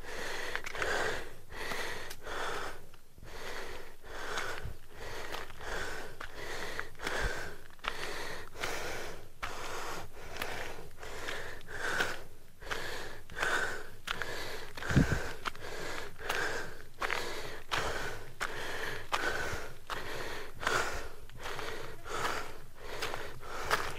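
A man panting heavily, one breath about every second, out of breath from a steep uphill climb on foot. A single low thump comes about fifteen seconds in.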